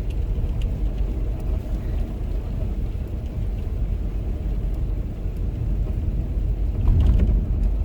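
Car driving slowly, heard from inside the cabin: a steady low rumble of road and engine noise, a little louder about seven seconds in.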